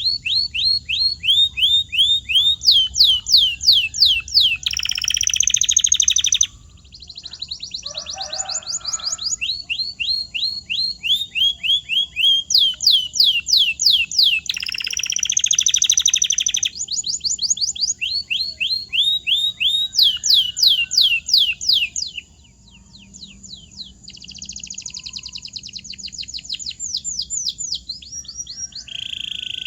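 Canary singing a long song made of runs of repeated falling whistled notes, some slow and some in fast trills, broken by short buzzy rolls.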